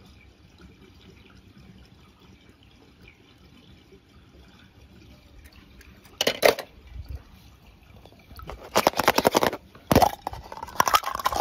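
Toy cars dropping into pool water: a faint trickle of water, then a loud splash about six seconds in, a rapid clattering run of splashes just before nine seconds, and another sharp splash a second later.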